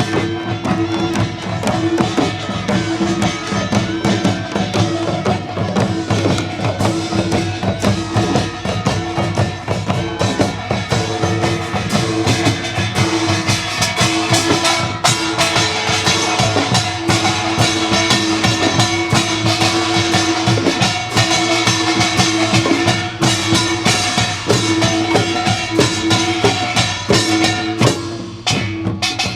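Korean traditional folk music: a percussion ensemble playing a dense, fast rhythm of strikes under a held pitched line that breaks off and resumes. The ensemble eases off briefly near the end.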